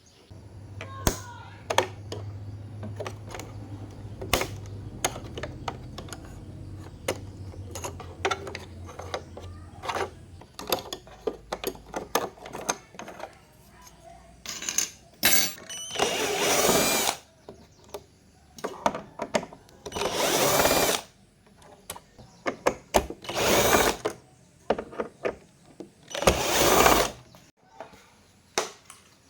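Clicks and clatter of tool handling over a low hum, then a small handheld power tool run in four short bursts of about a second each.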